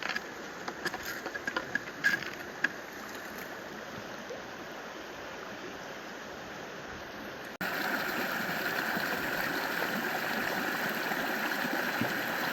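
Valley stream water running steadily, with a few small clicks and splashes in the first few seconds. About two-thirds of the way through it cuts to a louder, steady rush of water.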